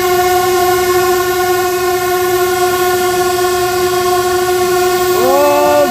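Locomotive horn held in one long steady blast, heard from inside the cab, warning an animal off the track. About five seconds in, a second horn tone joins, sliding up in pitch.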